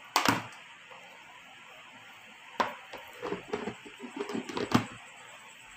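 Hard plastic food container and its clip-lock lid knocking and clacking as the lid is handled and set on the bowl: one sharp knock at the start, then a run of small clacks about two and a half to five seconds in.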